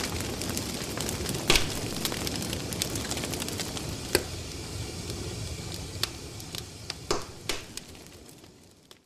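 Wood campfire burning in a fire pit: a steady crackle and hiss with a few sharp pops, fading out near the end.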